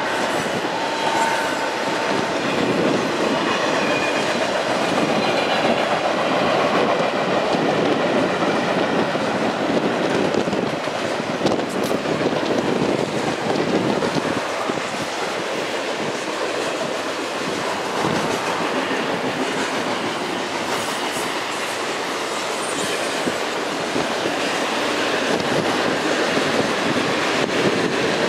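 Freight train of double-stack container cars and centerbeam lumber flatcars rolling steadily past on a steel girder bridge, a continuous clatter of steel wheels on the rails.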